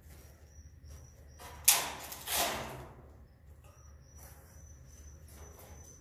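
A long pole-mounted nest harvesting tool scraping against the wooden ceiling joists of a swiftlet house, two loud rasping scrapes about half a second apart a little under two seconds in, with faint clicks around them. From about four seconds in a thin, steady high-pitched trill runs on.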